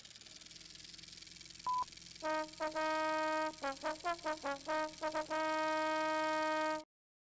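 Old-film countdown leader audio: a steady hiss, a single short high beep under two seconds in, then a brass fanfare of short quick notes ending on a long held note that cuts off abruptly.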